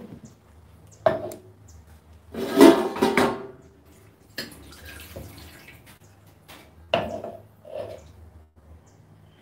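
Kitchen handling sounds: a few separate sharp knocks and clatters of dishes and utensils, with a louder, noisier stretch lasting about a second near the middle.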